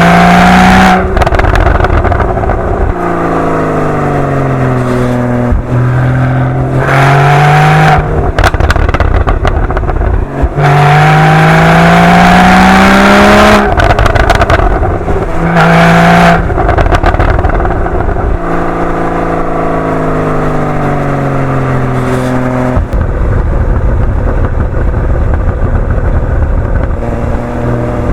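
Porsche 981 Boxster GTS's naturally aspirated 3.4-litre flat-six on its factory sport exhaust, revving up and settling back again and again. Several times, as the revs break off, the exhaust gives a burst of pops and crackles.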